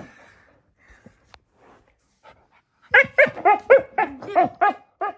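Puppy barking in a rapid run of short, high-pitched barks, about four a second, starting about three seconds in after a quiet stretch with a few faint clicks.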